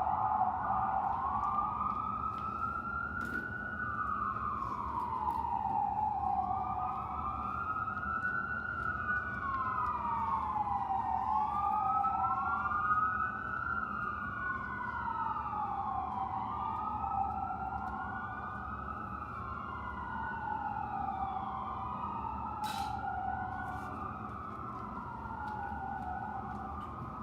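Two or more emergency-vehicle sirens wailing, their slow rising and falling sweeps overlapping and drifting out of step, over a low steady rumble.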